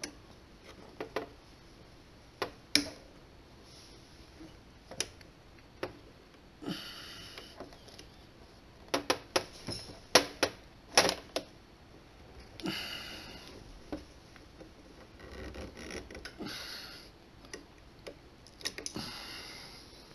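Small metal clicks and clinks from a Willcox & Gibbs automatic tension assembly and a small hand tool as the stuck tension is pried at, with a quick cluster of sharp clicks about nine to eleven seconds in. A few short rustling sounds come in between.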